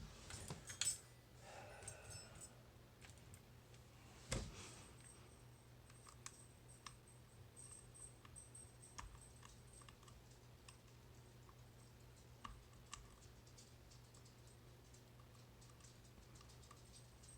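Faint, irregular light clicks of a pick and tensioner working the pins of a tubular lock, with a louder cluster of clicks just under a second in and a single knock about four seconds later.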